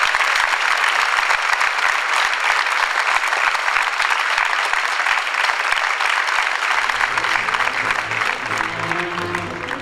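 Theatre audience applauding at the end of a musical number, dense steady clapping; about seven seconds in, music starts up underneath the applause.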